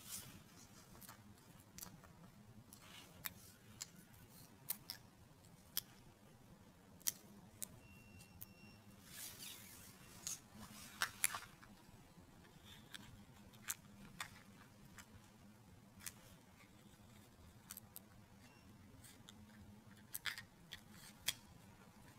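Small parts of a handheld barcode scanner's plastic housing, circuit board and battery pack being handled and fitted together: scattered sharp clicks and light taps over faint room noise, with a brief rustle about ten seconds in.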